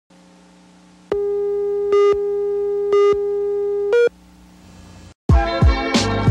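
A steady electronic tone sounds for about three seconds over a faint hum, with a short louder beep about once a second, the last beep higher in pitch. After a moment of silence, music with a beat and drum hits starts near the end.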